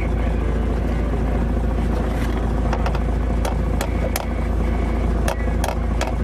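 Fishing boat's engine running steadily under a low rumble, with a few sharp clicks and knocks from about two seconds in.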